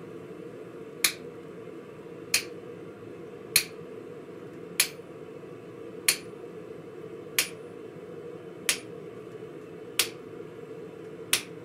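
A striker's hammer hitting a handled hot-cut chisel nine times at an even pace, about one blow every 1.3 seconds, splitting a glowing steel bar on the anvil, with a steady hum underneath.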